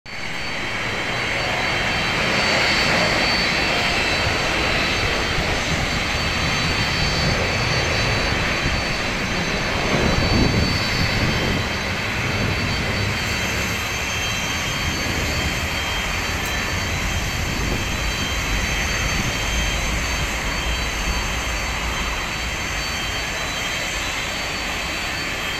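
Jet airliner taking off: its engines at takeoff thrust make a loud, steady rush with high whining tones over it. The sound is loudest about ten seconds in, then eases slightly as the plane climbs away.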